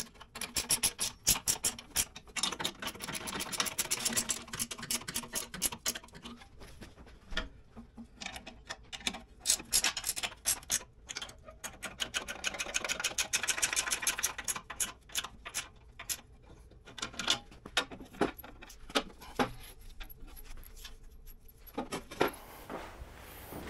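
Ratchet wrench clicking rapidly in runs of a few seconds, with short pauses between, as the bolts of the snow plow's adjustable shoes are worked to set the shoe height.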